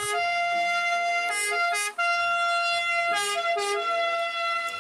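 Ambulance two-tone siren sounding. Long held notes alternate with passages of quick switching between two pitches, twice over.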